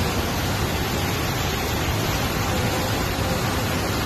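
Muddy floodwater rushing in a torrent over debris, a steady, loud, unbroken rush of water.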